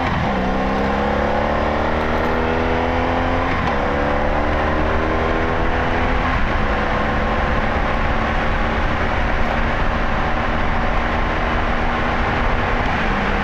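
Honda Magna 700's V4 engine pulling steadily under way, its pitch climbing slowly for the first several seconds with small breaks along the way, then holding a near-steady cruise, over a low rush of wind.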